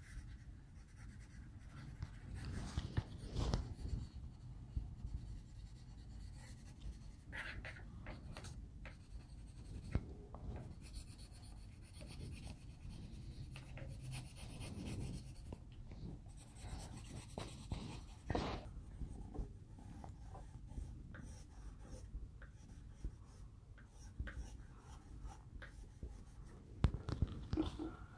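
Coloured pencil shading on paper: soft, irregular scratching strokes, with a few light taps.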